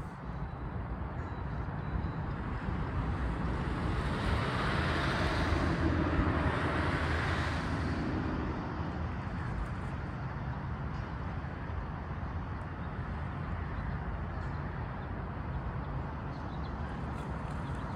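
Road traffic noise with a steady low rumble; one vehicle passes, swelling from about three seconds in and fading by about nine seconds.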